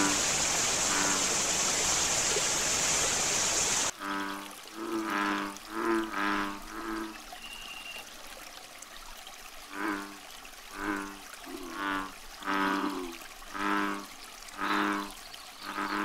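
Rushing, splashing water for the first four seconds, cut off suddenly, with background music faint beneath it. The music then carries on alone, its notes coming about once a second.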